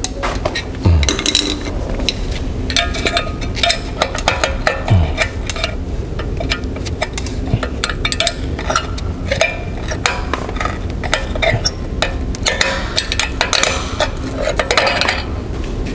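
Irregular metallic clinks and scrapes of the brake caliper's steel retaining spring being worked loose and handled with tools.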